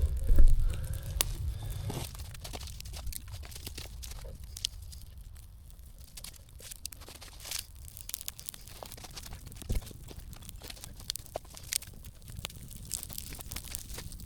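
Dry leaves and twigs rustling and cracking in scattered small snaps, louder with a low rumble for the first couple of seconds and then quieter.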